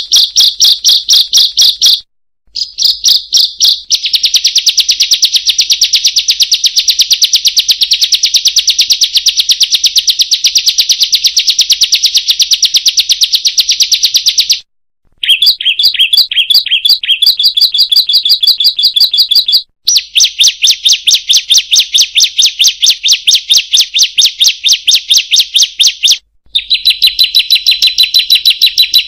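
A ciblek singing a rapid, high-pitched 'kriek-kriek-kriek' chatter in long unbroken runs of quickly repeated notes. The runs are broken by short, sudden silences: one about two seconds in, two around the middle and one near the end.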